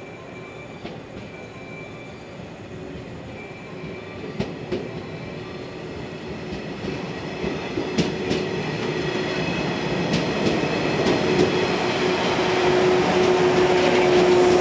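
Yellow electric commuter train drawing closer and running past, growing steadily louder. Its wheels click over the rail joints several times, under a steady tone that strengthens near the end.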